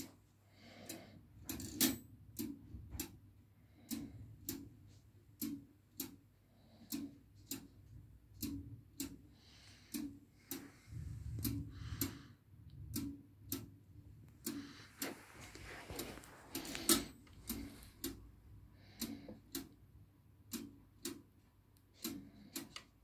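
Meccano model clock with a Riefler escapement ticking steadily, with sharp metallic ticks coming in pairs, about two every second and a half.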